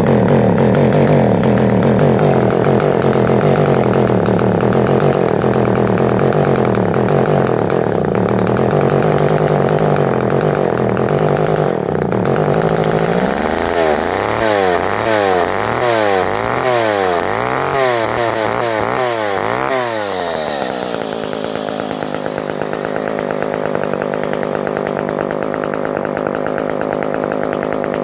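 McCulloch Pro Mac 10-10 two-stroke chainsaw engine running unevenly after a rough, hard start that the owner puts down to flooding. About halfway through, the throttle is opened and released about seven times, revving up and down, then it settles to a steady idle that is a little high.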